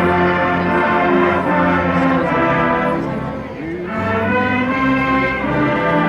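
Marching band brass playing long held chords, with a brief dip about three and a half seconds in before the next chord starts.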